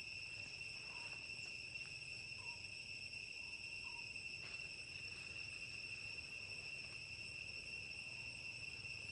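Insects droning steadily in the forest, one continuous high-pitched tone with a higher overtone. A few faint short chirps sound in the first half.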